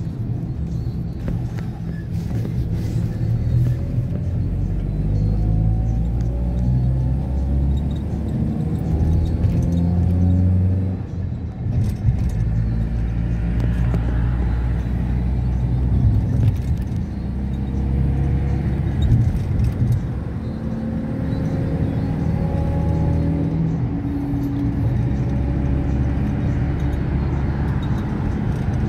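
A motor vehicle running, its engine note rising twice as it picks up speed, with a short dip in level about eleven seconds in.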